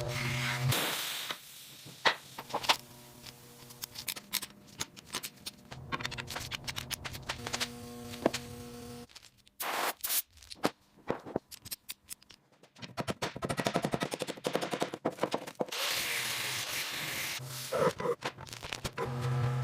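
Workshop work noises: a run of sharp knocks and clicks, a steady hum that starts and stops several times, and a stretch of rasping, scraping noise past the middle.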